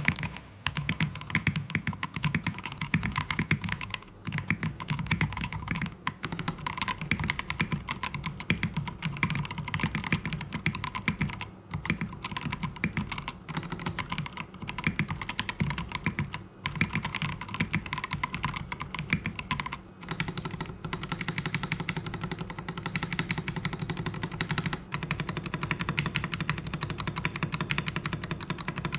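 Fast typing on an Akko Veekos K75 mechanical keyboard with an all-plastic case: a dense, continuous run of key clacks, broken by a few short pauses.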